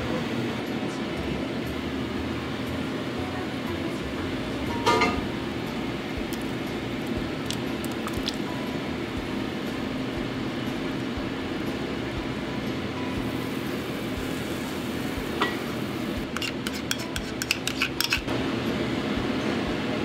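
Cooking utensils knocking and clinking against a metal soup pot while the soup is stirred, over a steady low hum. There is a single knock about five seconds in, another a little past the middle, and a quick run of clinks near the end.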